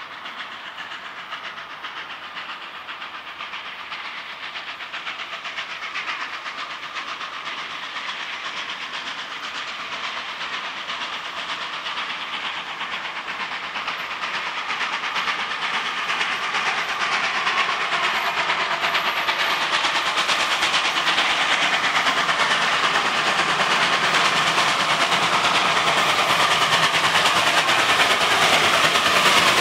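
Mikado steam locomotive 141.R.1244 approaching under steam, its running sound growing steadily louder throughout.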